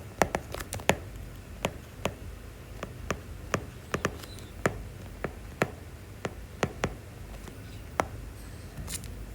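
Irregular light taps and clicks of a pen writing, roughly one or two a second, over low room hum.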